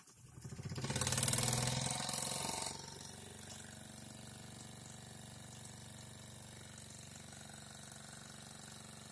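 Mamod toy live-steam traction engine starting up: its small oscillating steam cylinder runs up fast with a loud rapid rush of exhaust for about two seconds, then settles into steady, quieter running.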